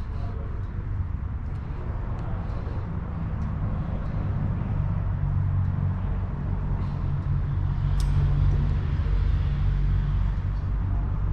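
Low, steady rumble of a vehicle engine running close by, with a steadier hum coming in about halfway through, a few light clicks, and one sharp click near the end.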